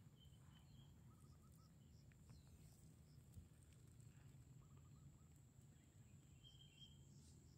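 Near silence of an open field: faint distant bird calls, twice a quick run of four short notes, over a steady high insect drone.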